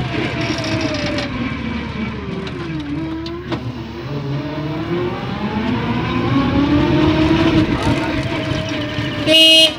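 Motor of a small passenger vehicle running as it drives along a road, its whine rising and falling in pitch with speed over road rumble. A horn honks once, briefly and loudly, near the end.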